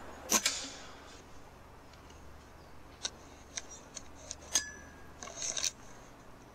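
One sharp, short shot from a shrouded Weihrauch HW100 .22 sub-12 ft/lb PCP air rifle about a third of a second in, a rushed shot whose pellet dents the metal squirrel feeder instead of hitting the squirrel. Afterwards come scattered light mechanical clicks, bunched together near the end.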